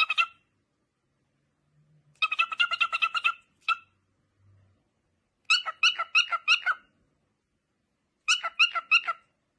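An animal's rapid, high-pitched pulsed calls, about eight to ten notes a second, in three bursts of about a second each with silence between them.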